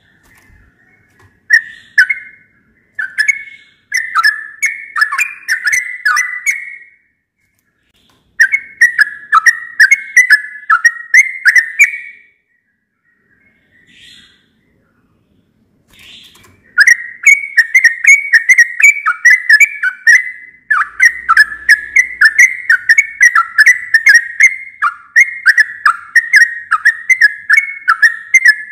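Yellow-vented bulbul singing: phrases of quick, whistled up-and-down notes, several a second. The phrases come in short bursts with pauses during the first half, then run on without a break for the second half.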